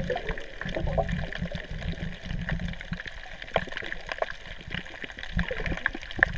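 Water sound picked up by a camera held underwater: a steady low rumble of moving water with many scattered sharp clicks and crackles.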